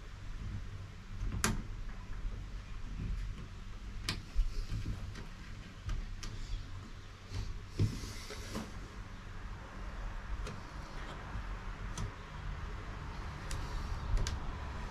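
Hand work on a hardtop's lamp housing: scattered sharp clicks and knocks of tools and plastic parts, with a brief scrape about halfway through.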